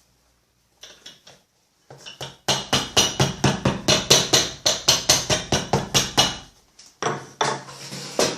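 Hammer tapping rapidly on a cobbler's anvil, about six sharp strikes a second for some four seconds, then a few more strikes near the end.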